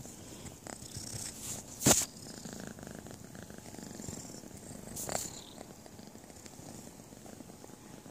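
Abyssinian kitten purring loudly, right up against the microphone, with a sharp knock about two seconds in and a smaller one about five seconds in.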